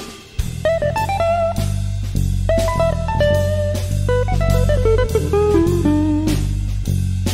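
Jazz guitar improvisation: a single-note guitar line with slides and bends over low bass guitar notes, the bass entering about half a second in.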